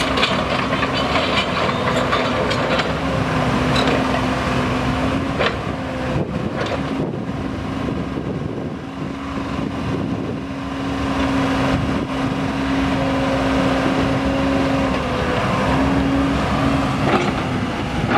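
Komatsu PC30 mini excavator running and being worked, with the boom, arm and swing in motion. A steady engine hum breaks off and resumes several times, with scattered clicks and clanks from the machine, most of them in the first seven seconds.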